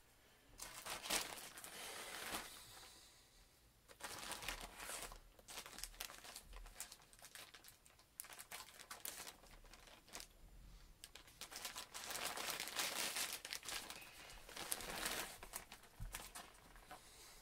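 Plastic poly mailer bag being torn open and crinkled by hand, in irregular bursts of rustling and crackling.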